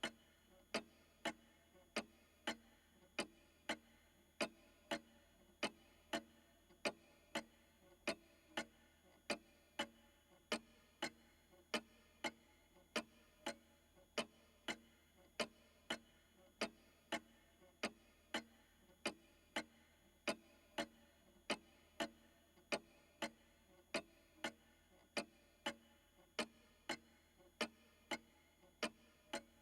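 Old pendulum clock ticking steadily, about three ticks every two seconds, each tick a sharp click with a short ring.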